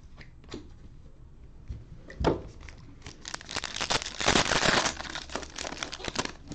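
Foil wrapper of a Panini Elite Extra Edition baseball card pack being torn open and crinkled by hand: a single knock a little over two seconds in, then a dense run of tearing and crackling about three seconds long.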